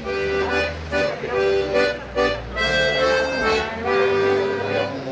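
Diatonic accordion playing a tune: a melody of changing notes over held low bass notes.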